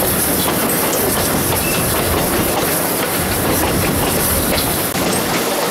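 Broad-gauge heritage train hauled by J Class steam locomotive J515, heard from an open carriage window: the steady running noise of wheels on rail, with clickety-clack of the carriage wheels over the rail joints.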